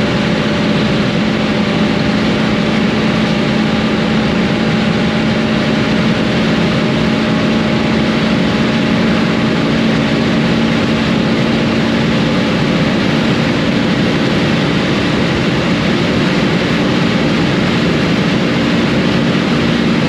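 Stock Honda Civic Type R FN2's naturally aspirated K20 four-cylinder engine at full throttle in top gear above 200 km/h, heard from inside the cabin: a steady high-rpm drone whose pitch creeps slowly up as the car gains speed, under heavy wind and tyre noise.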